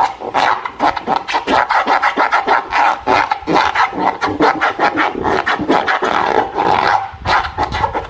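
Slime being squeezed and worked by hand, a rapid, continuous run of sticky crackling clicks with a short lull about seven seconds in.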